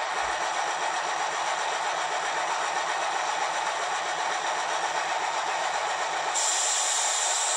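Sampled air-compressor sound of an ÖBB 2050 diesel locomotive, played by an ESU LokSound 5 decoder through the small loudspeaker of an H0 scale model: steady running with a hiss, a brighter hiss joining about six seconds in.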